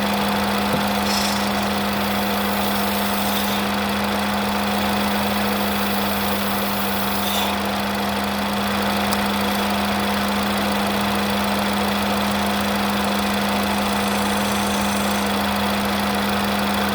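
Ford Escape 1.6 L turbocharged four-cylinder engine idling steadily with a steady hum, kept running by a pressure line pulled off to vent. With the line in place it starts and dies, which the mechanic puts down to a stuck turbo wastegate.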